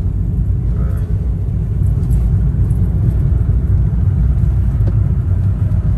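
Low, steady rumble of a small VW Saveiro 1.6 pickup's engine and tyres on the road, heard from inside its cabin while driving.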